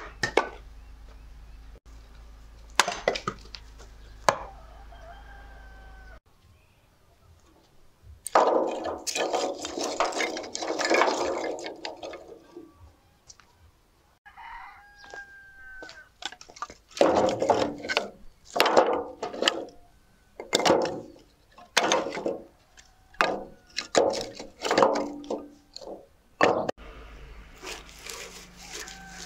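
Firewood being chopped and split with an axe: a series of sharp strokes and cracks, about one a second through much of the stretch. A rooster crows faintly in the background.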